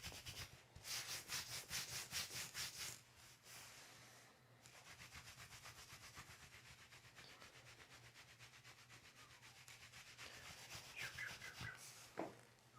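Faint rhythmic rubbing, about five strokes a second, louder for the first few seconds and then softer and steady.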